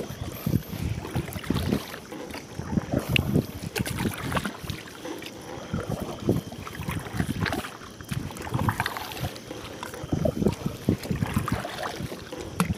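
Kayak paddle strokes dipping and splashing in the water at an uneven rhythm, with wind buffeting the microphone.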